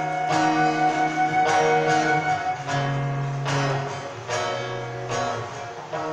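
Live instrumental music: an acoustic guitar strummed about once a second under a flute playing held melody notes.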